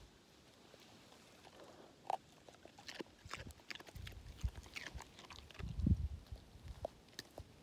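English setter biting and chewing pieces of raw carrot, a run of crisp crunches, with a few deep low thumps near the middle.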